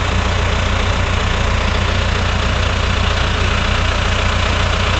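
A telehandler's engine idling steadily.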